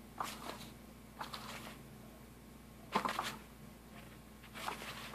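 Cat's Meow battery-powered cat toy running: its small motor hums steadily, coming in at the very start, while the wand moving under the nylon cover rustles it in scratchy bursts, the loudest about three seconds in.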